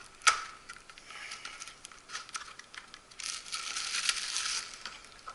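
Packaging being handled as a product box is opened: a sharp click just after the start, scattered small clicks and taps, then rustling and crinkling from about three seconds in for over a second.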